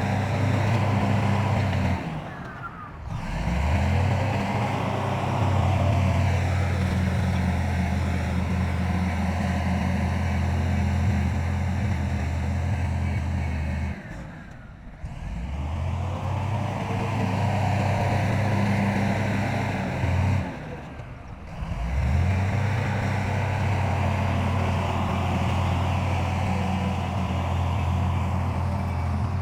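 Heavy diesel engine of earthmoving machinery running steadily at a deep, even note. The sound drops away briefly three times, and the engine note climbs back after each drop.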